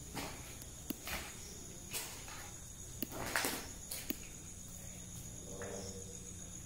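Footsteps crunching through dry leaves and undergrowth, about two a second, stopping after about four seconds. A steady high insect drone runs underneath.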